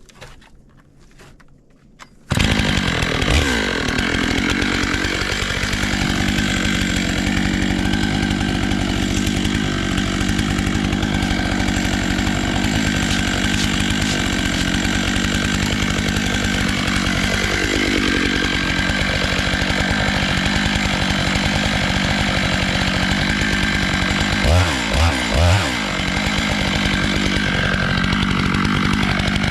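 Chainsaw on a small log mill, starting abruptly about two seconds in and then running at high revs as it cuts a disc from a black walnut log. The engine pitch dips briefly twice under load, and it stutters for a moment near the end.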